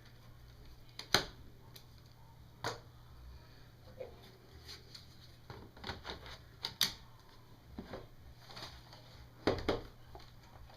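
Scattered clicks and knocks from handling an HP Compaq 6730b notebook during a memory install. The loudest knock comes about a second in, and a quick double knock comes near the end.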